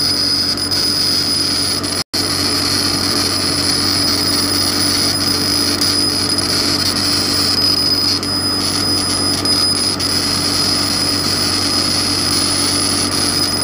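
Steady mechanical whirring with a constant high-pitched whine over a low hum, broken by one brief dropout about two seconds in.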